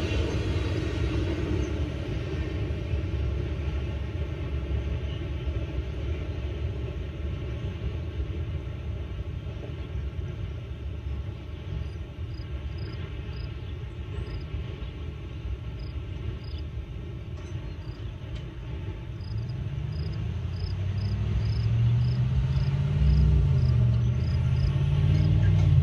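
CSX double-stack intermodal container train rolling past, its cars rumbling steadily and then fading as the tail end goes by. From about halfway, insects chirp in a regular series. Near the end a low engine note rises and wavers in pitch.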